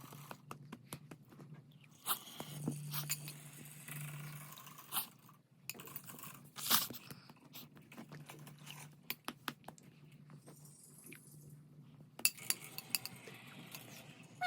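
Eating from a dish: irregular clicks and scrapes of a spoon against a bowl, with chewing and mouth sounds, as a child is fed besan halwa.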